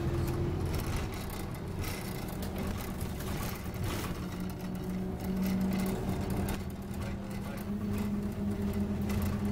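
Scania OmniCity double-decker bus running along the road, heard from inside the passenger saloon: a steady low engine drone with road noise, swelling a little about halfway through.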